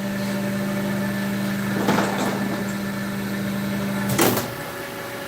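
A steady machine hum with a few knocks about two seconds in; a louder clack comes about four seconds in, and the hum stops there.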